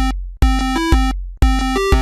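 Upbeat synthesizer background music with a steady beat and a deep bass thump on each beat, breaking into short silent gaps about once a second.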